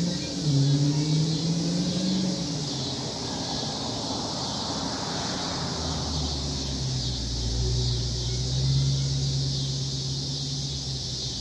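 Dodge Hellcat's supercharged V8 running out of sight: its pitch climbs over the first couple of seconds, a rushing swell builds and fades around the middle, and then it settles into a low, steady drone with a deep rumble.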